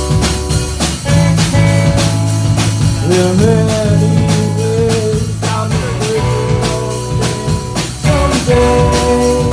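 A band playing a blues-rock tune: a drum kit keeps a steady beat under bass notes and guitar.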